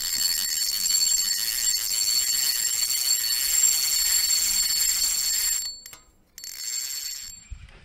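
Fishing reel drag screaming as a hooked fish takes line: a loud, high-pitched ringing buzz that stops about six seconds in, then runs again briefly.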